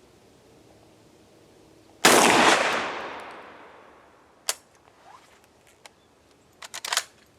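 A single shot from a Centurion BP12 12-gauge shotgun about two seconds in, its echo dying away over some two seconds. Then one sharp click and, near the end, a quick run of metallic clicks as the action is worked by hand: the Rio shell has not cycled out of the drum.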